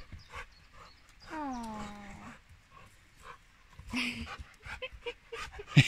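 Rottweiler giving one drawn-out whine that falls in pitch and then holds for about a second while tugging at a rope swing, with a shorter sound a few seconds later. A sharp thump just before the end is the loudest sound.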